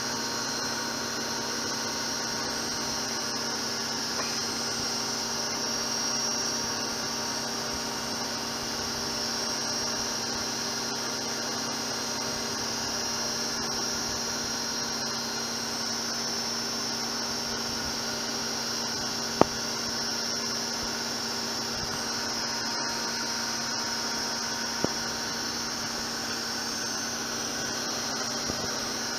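Zanussi ZWF 1432 washing machine in a fast spin: a steady whine and hum at an even pitch. A sharp click comes about 19 seconds in and a fainter one near 25 seconds.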